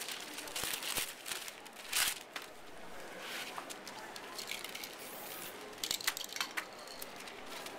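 Magazine paper crinkling and rustling as it is handled, in short irregular bursts, with a cluster of crackles about six seconds in.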